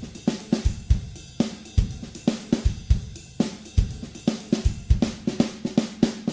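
Background music: a drum kit playing a steady beat of kick, snare and cymbal hits with no melody over it.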